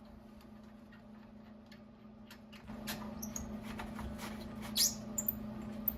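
Light clicks, taps and short high squeaks of parts and tools being handled, sharpest about five seconds in. A steady low hum comes in about two and a half seconds in and runs under them.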